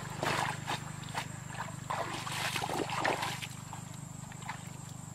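Feet wading and splashing through shallow muddy water, a handful of irregular splashes and sloshes over the first three and a half seconds, then quieter, under a steady low hum.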